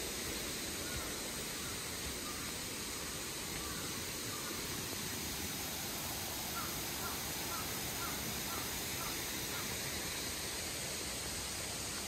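Mountain stream rushing steadily. A little past the middle, a bird calls a quick series of about eight short notes.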